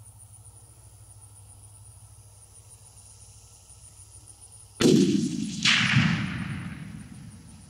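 A 6.5 Creedmoor rifle shot: one sharp, loud crack near the end, a second crack just under a second later, then a rumbling echo that dies away over about two seconds. The hunters take the second sound for the bullet hitting the hog.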